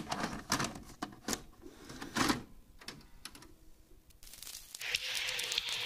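A few scattered sharp clicks in the first couple of seconds, then a faint steady hiss fading in about four seconds in.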